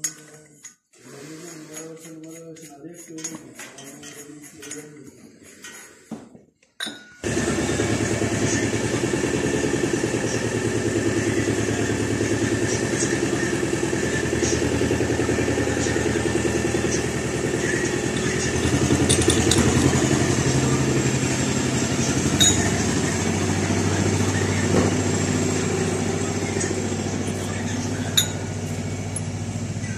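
Antor single-cylinder diesel engine of a patpat walk-behind tractor running steadily, coming in suddenly about seven seconds in. A few sharp metallic clinks sound over it.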